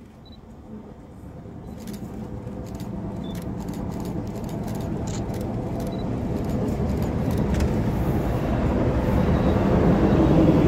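PKP EP05 electric locomotive setting off with a passenger train: a steady rumble of running gear and motors that grows louder and louder as it draws near and passes close by.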